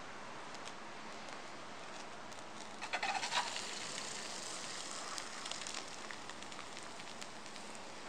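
Molten aluminium poured from a crucible into a mould, crackling as the hot metal hits the mould, loudest in a cluster about three seconds in, with scattered fainter crackles after.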